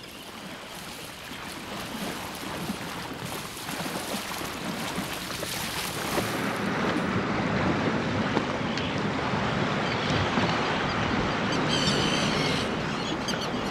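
Ocean surf and wind on an open shore: a steady wash of waves that slowly grows louder, with a few short high calls near the end.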